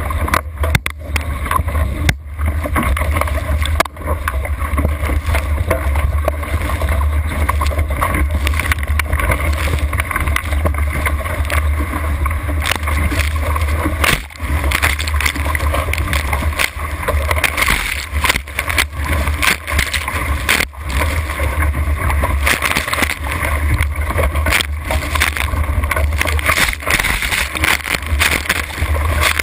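Water rushing and splashing against a small sailing catamaran's hull at speed, with spray striking the camera and a steady deep wind rumble on the microphone.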